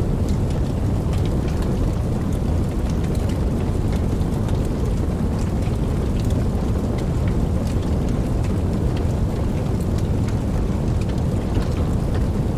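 Steady rain falling, with scattered sharp drop ticks over a deep, continuous rumble of distant thunder; no single thunderclap stands out.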